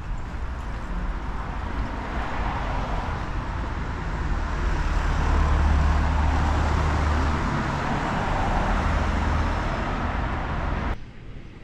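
A motor vehicle running close by, its engine rumble and road noise swelling to a peak about halfway through and easing off, then cut off suddenly near the end.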